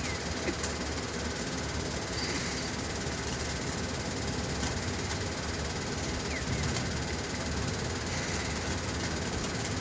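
Steady rainfall, an even hiss with a few faint ticks.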